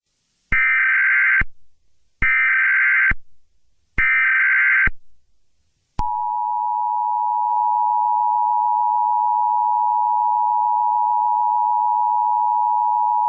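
Emergency Alert System broadcast signal: three short bursts of SAME digital header data, each about a second long with about a second between them. Then, about six seconds in, the steady two-tone EAS attention signal begins and holds, announcing an emergency alert.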